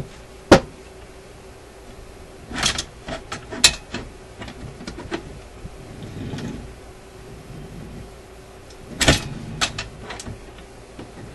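RCA Victor 65U record changer mechanism turned by hand, with clicks and clunks of its levers and cams as it is forced through its cycle: a sharp click about half a second in, a cluster of clicks around three seconds, and another loud clunk with rattles near nine seconds. The mechanism is stiff, with tight spots that it must be pushed past.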